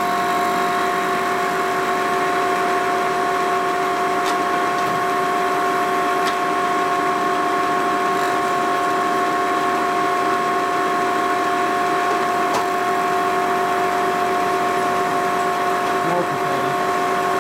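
Vertical milling machine running steadily, its end mill cutting an aluminum brake caliper bracket: a constant whine of several held tones over a hiss of cutting, with a couple of faint ticks.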